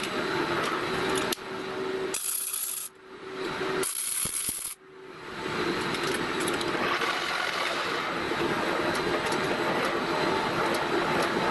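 Large metal lathe running, spinning a heavy welded bearing housing in a big four-jaw chuck: a steady mechanical whirr with a low hum. The sound cuts out briefly twice in the first few seconds, then runs evenly.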